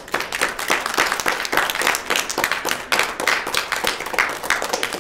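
Audience applauding, many hands clapping in a dense, irregular patter.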